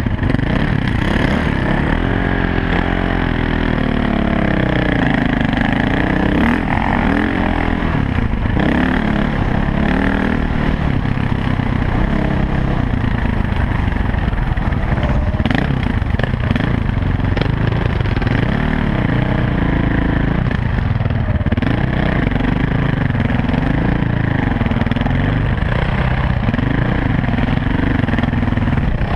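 Dirt bike engine running under way on a trail, its pitch rising and falling again and again as the throttle opens and closes.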